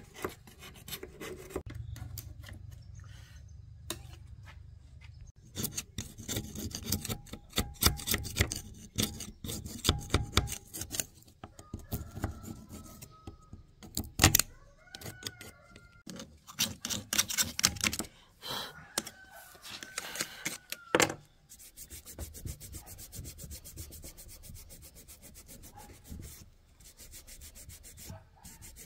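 Repeated rough scraping and rubbing strokes on the dirty casing of an old electric wood planer as it is cleaned by hand, with a few short squeaks and one sharp knock about halfway through.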